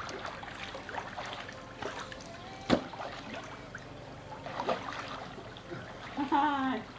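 Swimming-pool water splashing and lapping around a swimmer, with many small splashes and one sharp slap about three seconds in. A child's brief voice comes near the end.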